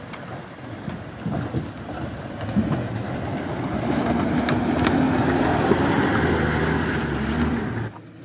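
Toyota Land Cruiser 70-series 4x4 engine running as it crawls over a wooden plank bridge, growing louder as it comes closer, with a few knocks from the loose timber planks under the tyres. The sound cuts off suddenly near the end.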